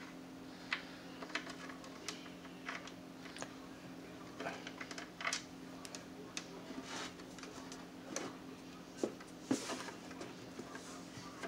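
Irregular small clicks and light knocks of hands working under a radio cabinet, handling it and fiddling the chassis mounting screws into place from below. A steady low hum runs underneath.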